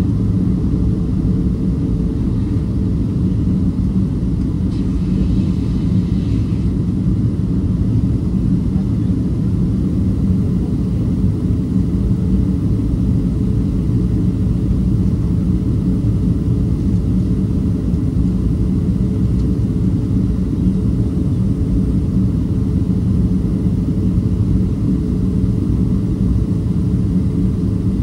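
Steady cabin noise heard from a window seat inside a Boeing 737-500 airliner in flight: a constant low rumble of airflow and CFM56 turbofan engines, with a faint steady hum under it.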